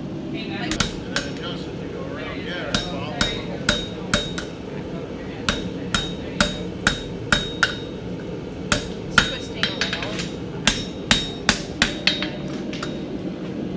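Farrier's hammer striking a horseshoe on an anvil: a long run of ringing metal blows, about two a second, in several runs with short pauses, over a steady low rumble.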